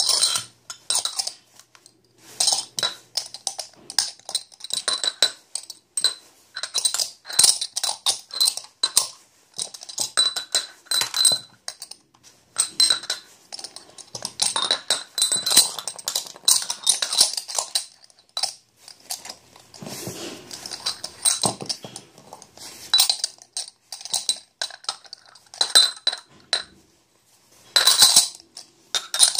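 Glass soju shot glasses being speed-stacked up and down in a run of quick clinks, glass on glass and on the table, each with a bright, high ringing note. The glasses are handled at a careful pace for fear of breaking them, with short pauses between sequences.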